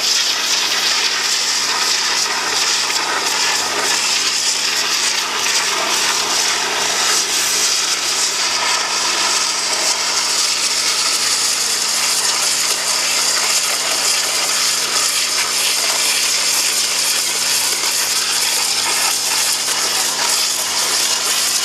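Hot-water pressure washer jet from a 0-degree nozzle blasting caked mud off a steel excavator track: a loud, steady hiss.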